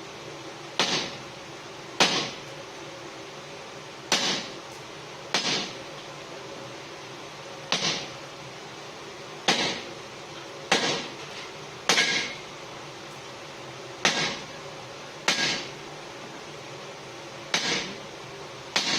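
Hand hammer blows on hot forklift-fork steel on an anvil: about a dozen hard strikes, unevenly spaced a second or two apart, each with a short ring, over a steady background hum.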